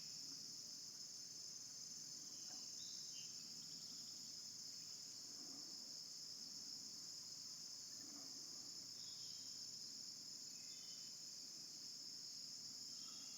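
Steady insect chorus: a continuous high-pitched trill, with a few faint short chirps now and then.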